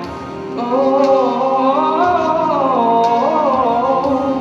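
A man singing into a handheld microphone over a backing track: one long sung phrase whose pitch climbs and then falls, beginning about half a second in.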